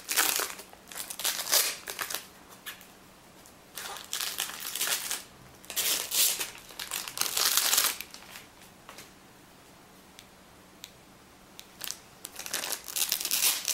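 Thin clear plastic protective foil being peeled off a device and crinkled in the hands. It comes in irregular crackling bursts, with a long pause of a few seconds in the second half.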